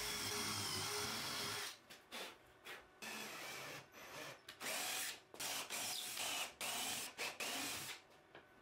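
Power drill driving screws: the motor runs steadily for the first second and a half or so, then in a series of short stop-start bursts as each screw is run in and snugged down.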